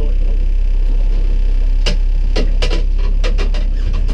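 A steady low rumble aboard a small aluminium fishing boat, with a run of sharp knocks and clicks starting about two seconds in.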